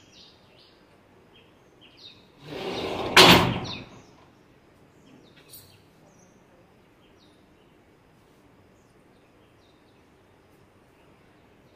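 Faint, scattered bird chirps, with a loud rush of noise about a second and a half long that ends in a sharp knock about three seconds in.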